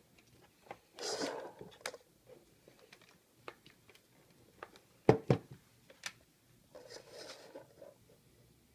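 Handling noises close to the microphone: scattered clicks and taps, a loud sharp double click about five seconds in, and two short rustling bursts, one about a second in and one near the end. No tone from the oscillator or amplifier is heard.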